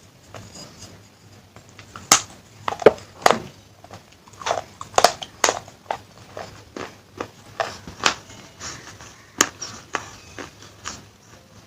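Close-up biting and chewing of dry baked clay pieces from a small claypot handi: irregular sharp crunches and cracks, with softer grinding between them.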